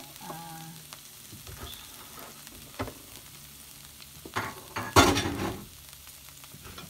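Garlic sizzling in hot oil in a frying pan as it is sautéed and stirred, with a few sharp clicks and a loud rush of sizzling and scraping about five seconds in.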